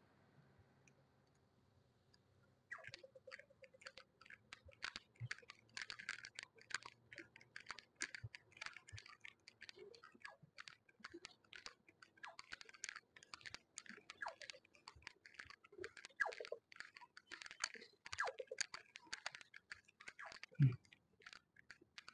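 Faint, dense, irregular clicking and scratching that starts a few seconds in and keeps going, with no steady beat.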